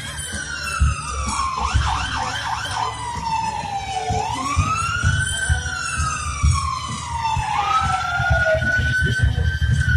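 An emergency vehicle's siren wailing, its pitch sweeping up and then slowly falling, about every four seconds. A short run of quick chirping yelps comes about two seconds in, over a steady low rumble.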